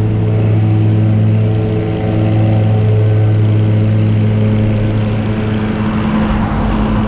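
An engine running steadily at a constant speed, with a car passing about six seconds in.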